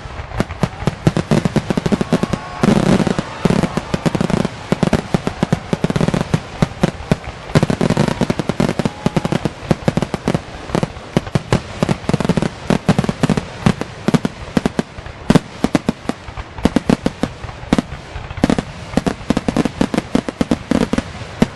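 Fireworks finale: a continuous barrage of rapid, overlapping bangs, several a second, with deep booms among them.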